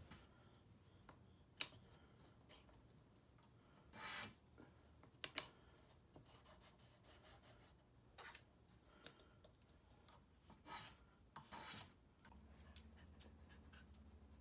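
Faint, scattered scraping and rubbing of wood, a few short scrapes and sharp clicks over near-silent room tone. A low steady hum comes in near the end.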